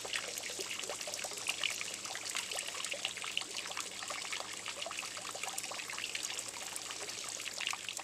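Water from a fountain trickling and splashing steadily into a spring-fed fish pond, a continuous patter of many small splashes.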